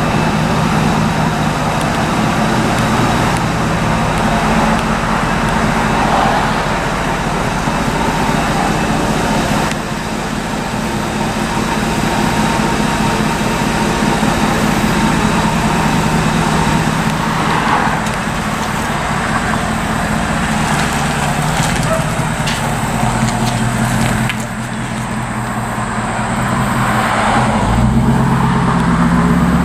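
2002 Ford F-150 Lightning's supercharged 5.4-litre V8 running, its blower freshly refilled with oil. The engine note holds steady, drops lower for a few seconds past the middle, then rises near the end as the engine speeds up.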